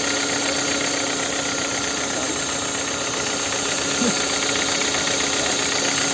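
Hyundai Elantra HD engine running with a steady knock, a noise whose cause the owner is trying to find.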